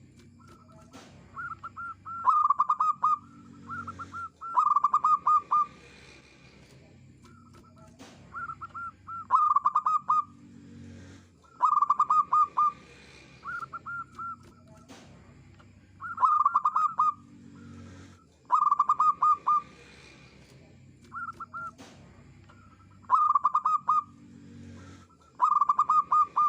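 Zebra dove singing: phrases of quick, clipped cooing notes, each up to about a second long, repeated every two to three seconds.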